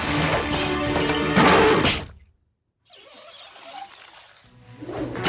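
Cartoon soundtrack: background music with a loud crashing sound effect about a second and a half in. The sound cuts to silence briefly, then quieter noise comes in and the music builds back near the end.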